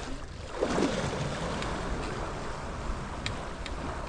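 Small sea waves washing and surging against rocks at the water's edge, the wash swelling about half a second in and hissing on, with wind rumbling on the microphone.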